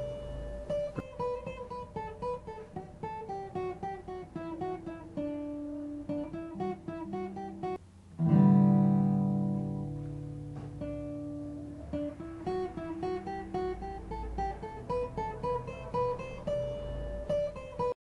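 Instrumental music on a plucked string instrument: a run of picked notes, a brief break, then a loud strummed chord about eight seconds in that rings out, followed by more picked notes.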